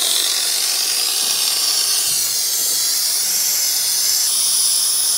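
Steady loud hiss of compressed air rushing through a venturi-type coolant vacuum bleeder, pulling a vacuum on the car's cooling system before the coolant is drawn in.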